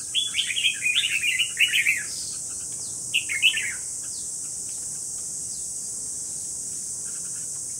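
Caged red-whiskered bulbuls singing: a quick chattering run of song phrases for about two seconds, then a shorter phrase about three seconds in. A steady high-pitched insect drone runs underneath.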